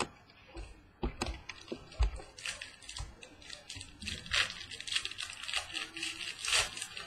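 Trading-card pack wrapper crinkling and tearing, with soft taps and slides of cards being handled. The crinkling comes in two stretches, a short one about two and a half seconds in and a longer one from about four seconds in.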